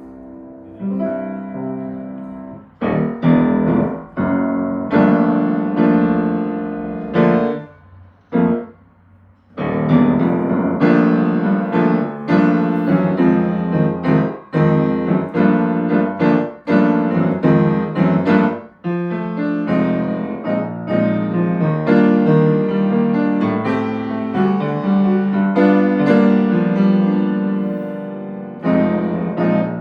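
Piano being played: a run of struck chords and notes, with a pause of about two seconds roughly eight seconds in.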